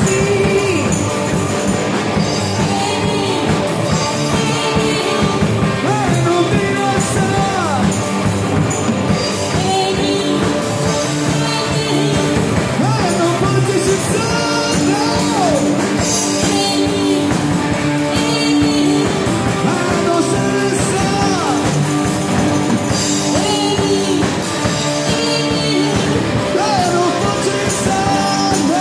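Live rock band playing: electric guitars, a drum kit and a keyboard, with a singer's voice over them.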